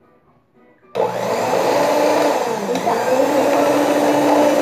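Electric stand mixer switched on about a second in, starting suddenly and then running steadily with an even hum as its beaters whip eggs and sugar.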